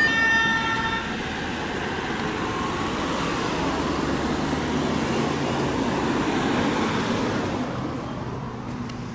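A vehicle horn sounds and cuts off about a second in, followed by steady road-traffic noise of car and fire-truck engines and tyres moving slowly past.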